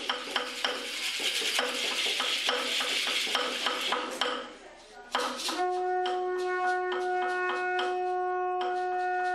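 Rattles shaken in a beat of about three strikes a second. After a brief pause about five seconds in, a conch shell trumpet is blown: one long, steady note.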